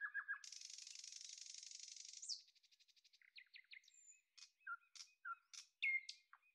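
Faint songbird singing: short chirps, then a buzzy trill of nearly two seconds starting about half a second in, a quick run of rapidly repeated notes, and scattered chirps and whistles.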